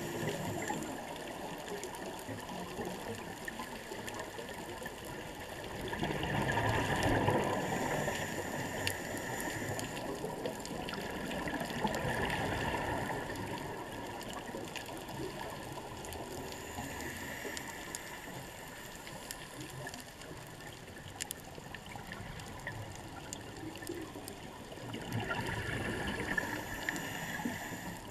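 Underwater scuba diving sound: a steady watery hiss, with a rushing swell of exhaled regulator bubbles every several seconds, four times.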